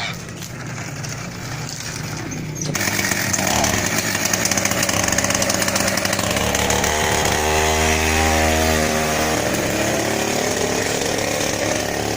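Two-stroke chainsaw engine powering a homemade motorbike, running and revving up about three seconds in, then holding at high revs.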